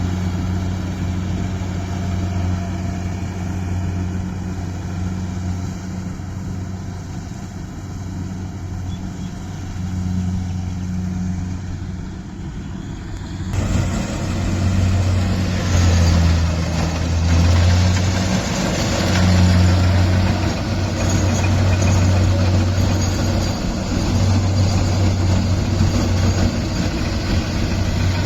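Kubota rice combine harvester's diesel engine running steadily. About halfway through the sound changes abruptly and grows louder, with a rough hiss over the engine hum.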